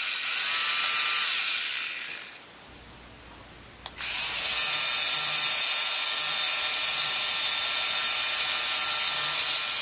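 3Doodler 3D pen's small geared drive motor running as it feeds and extrudes plastic filament, a steady whir with a high hiss. It stops about two seconds in, a sharp click comes just before four seconds, and it starts again and runs on.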